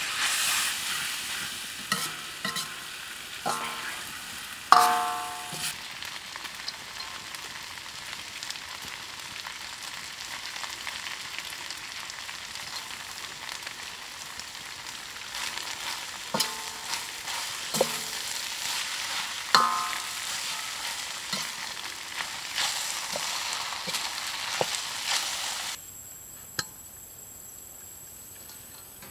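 Noodles and vegetables sizzling in a steel wok as they are stir-fried with a steel ladle, which now and then clanks and rings against the wok. Near the end the sizzling cuts off, leaving a quieter background with a thin high steady tone.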